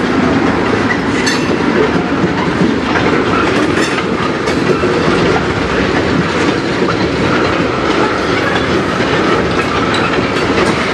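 Freight train of tank cars rolling slowly past: a steady, loud rumble of steel wheels on rail, with occasional sharp clicks and clanks.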